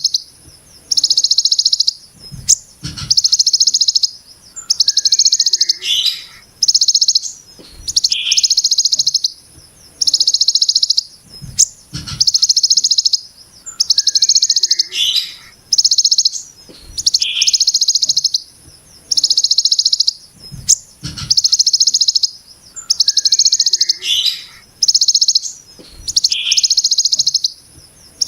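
Bird giving the harsh, rapid 'brem' buzz of a ciblek gunung (mountain prinia): about sixteen high, rattling bursts of about a second each, repeated every one and a half to two seconds, with a few short lower chirps between them.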